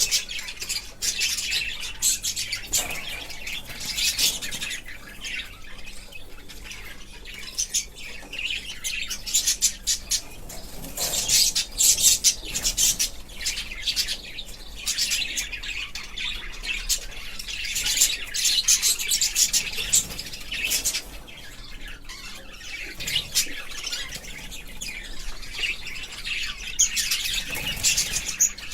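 Budgies chirping and chattering: a dense run of quick, high chirps that swells and eases, busiest around the middle and again near the end.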